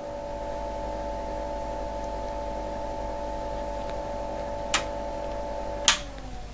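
Unitek Dual Pulse 125 spot-welder power supply humming steadily with several tones. A switch clicks a little over a second before the end, then a louder click as the power switch is pressed, and the hum falls in pitch and fades as the unit winds down.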